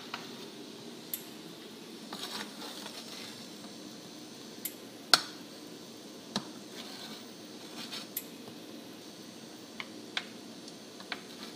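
Metal ladle clinking against a steel stockpot and a ceramic bowl while foam is skimmed off boiling chicken bones for broth: scattered light clinks, the sharpest about five seconds in, over a steady low background noise.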